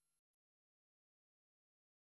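Digital silence: a gap between pieces of piano music.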